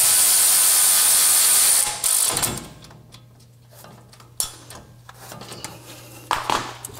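Cordless ratchet running for about two seconds as it drives in a bolt on the truck's front brake assembly, then stopping. A few light clicks and knocks of tool handling follow.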